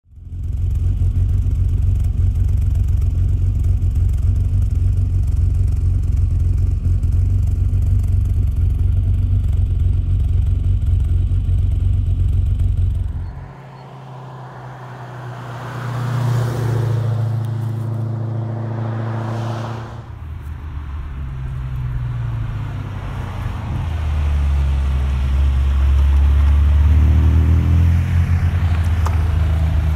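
A steady low rumble for about the first thirteen seconds, then historic rally cars driving past one after another, their engines rising and falling in pitch as they accelerate through the bends.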